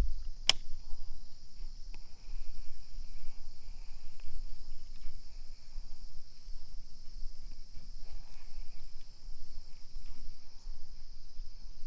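Steady high-pitched chirring of insects, crickets or similar, with a sharp click about half a second in and a low, uneven rumble underneath.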